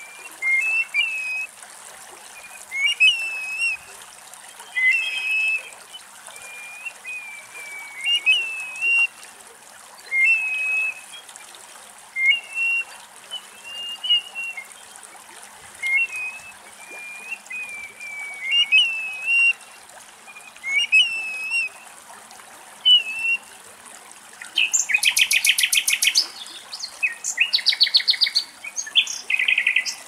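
Grey plover calling: a plaintive, slurred whistle repeated every one to two seconds. Near the end a common nightingale sings over it, with loud, fast rattling trills.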